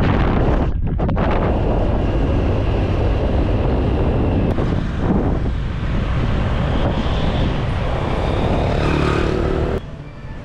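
A moving road vehicle: a loud, steady rushing noise with a low rumble, which cuts off suddenly near the end.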